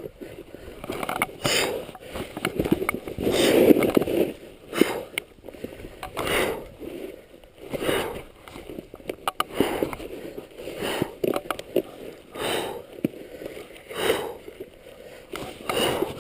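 Snowboard sliding and scraping over snow in a run of turns, a whooshing scrape that swells and fades about every one to two seconds.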